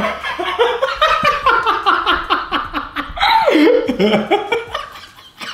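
A man laughing in a long run of quick laughs that fades away over the last second or so.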